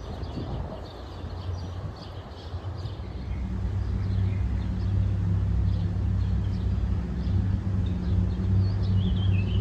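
Outdoor ambience: small birds chirping, with a steady low mechanical hum that grows louder from about three seconds in and then holds.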